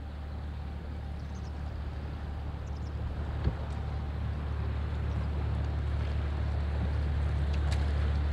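Diesel engine of a passing inland push boat and its barge: a steady low drone with water wash that grows gradually louder as the push boat draws level.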